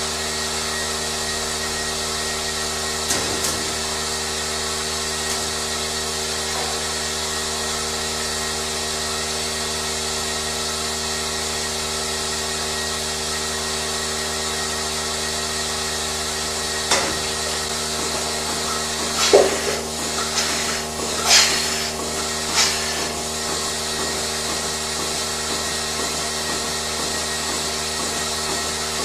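Steady hum of running machinery with several fixed tones, broken by a few short knocks and clatters about two-thirds of the way through.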